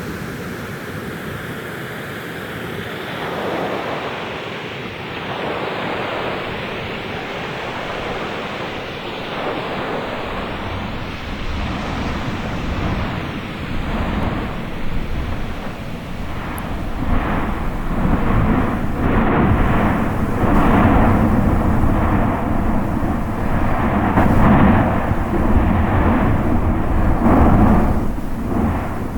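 Electroacoustic noise texture: a rushing roar that builds steadily and, over the last twelve seconds or so, breaks into louder pulsing surges with a deep rumble.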